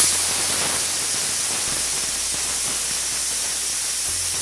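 Aluminium Premier pressure cooker giving its first whistle: a loud, steady hiss of steam escaping under the weighted vent valve, the sign that the cooker has come up to pressure.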